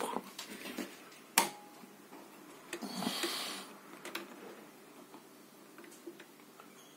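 Faint handling clicks and ticks as a bench signal generator's tuning knob is turned by hand, with one sharper click about a second and a half in and a brief hiss around three seconds in.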